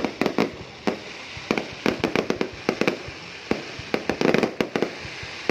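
Fireworks display: irregular sharp bangs of bursting shells, several a second, with a dense run of rapid bangs about four seconds in.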